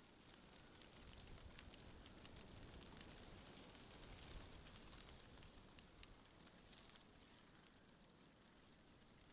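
Faint wind rustling through tree leaves: a soft hiss with many small crackling ticks, swelling slightly in the first half.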